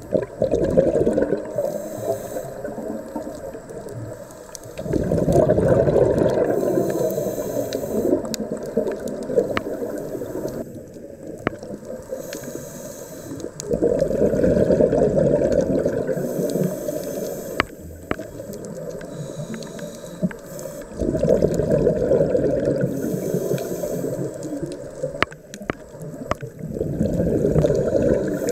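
Scuba diver breathing through a regulator underwater: a short hiss on each inhale, then a long rumbling gush of exhaled bubbles, repeating about every seven to eight seconds.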